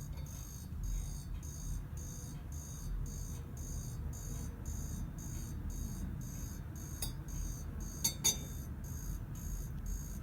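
Hand-painted ceramic cup of coffee with creamer chirping by itself: short high chirps repeating evenly at about three a second, with a couple of louder clicks near the end.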